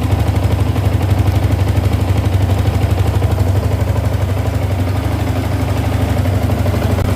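Yamaha TFX150's single-cylinder four-stroke engine idling steadily with a fast even exhaust pulse, running on fresh oil and a new oil filter while it is checked for leaks.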